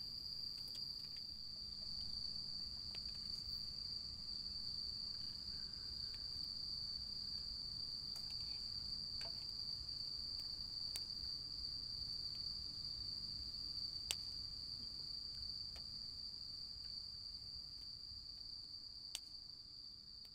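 Crickets trilling in one steady, high, unbroken chorus, with a few sharp pops from the wood campfire. The sound fades near the end.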